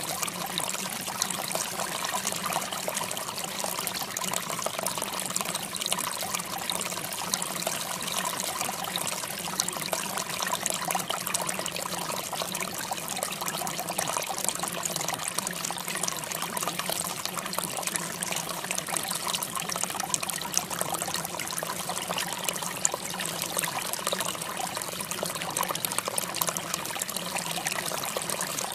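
Steady trickling, running water that keeps on unchanged, with fine splashy ticks.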